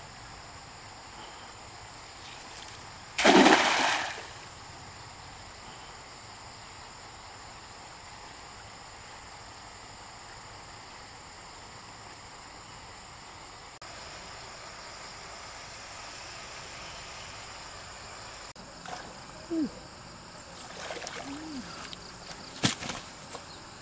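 Stream water running steadily, with one loud splash about three seconds in that lasts under a second. A few small knocks and sharp clicks come near the end.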